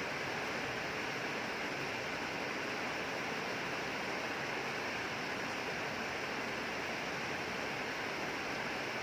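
Steady heavy rainfall, an even hiss with no distinct drops or thunder.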